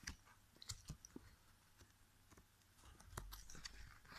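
Faint, scattered clicks and light knocks of small plastic charger parts being handled, with a soft rumble of handling about three seconds in.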